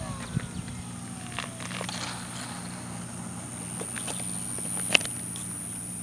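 Whine of the F-15's 64 mm five-blade electric ducted fan, driven by a 4500kv outrunner motor, fading and falling in pitch as the jet flies away after a touch-and-go. It leaves a steady low hum, with a few faint clicks and one sharp click about five seconds in.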